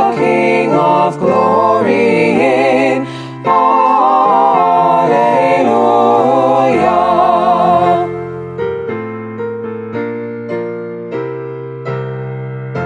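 A hymn sung in harmony by several voices over sustained keyboard chords, the voices ending about eight seconds in. Then a piano plays a slow closing line of single notes that ring and fade.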